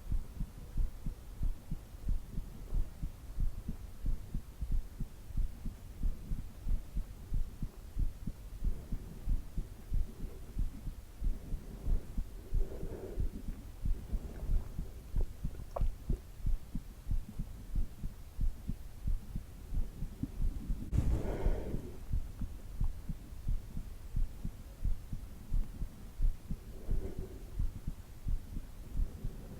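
Heartbeat going in a steady, even rhythm of low thumps. A brief louder noise sounds over it about two-thirds of the way through.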